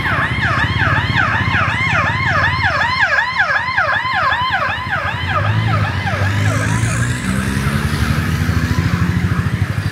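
Police car siren in a rapid yelp, about four sweeps a second, fading out after about six seconds. Low engine rumble from passing traffic rises in the second half.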